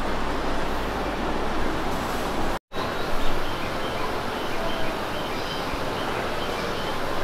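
Ambient noise of a busy railway station platform, a steady hubbub with no single sound standing out, broken by a brief drop to silence about two and a half seconds in.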